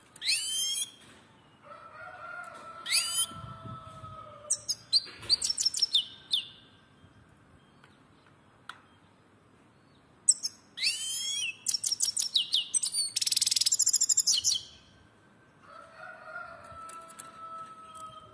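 European goldfinch singing in its cage: short bursts of high, fast twittering and trills, with a longer buzzy rattling run about two-thirds of the way through. Twice a lower, steady, slightly falling whistle-like tone sounds under the song, about two seconds in and again near the end.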